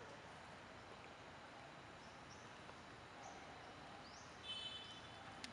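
Near-silent outdoor ambience with faint, short rising bird chirps scattered through, and one brief, slightly louder call with several stacked tones about four and a half seconds in.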